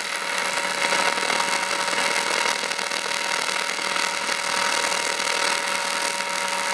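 TIG welding arc on thin aluminium plate, burning steadily as a tack weld is made at the plate's edge: a steady hiss with a faint hum under it.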